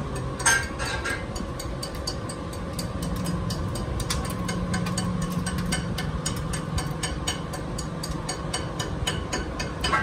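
Steel chipping hammer striking a fresh weld bead on a steel axle shaft to knock off the slag: a run of sharp metallic taps, about four a second, the hardest about half a second in. A steady low hum runs underneath.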